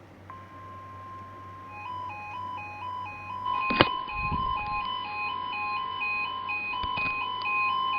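NOAA Weather Radio 1050 Hz warning alarm tone, a steady high tone beginning just after the start. From about two seconds in, a receiver's electronic alert alarm warbles over it, stepping back and forth between two pitches, set off by the tone. A sharp click a little before four seconds in and another around seven.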